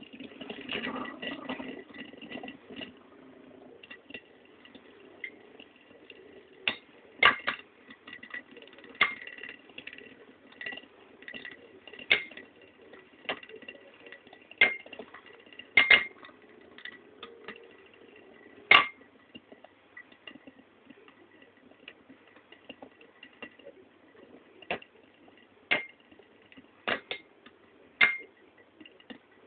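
Two Beyblade Metal Fusion tops spinning together in a shallow dish, with a steady faint high whir. They clash in sharp metallic clicks every second or two, thickest in the middle stretch and fewer near the end.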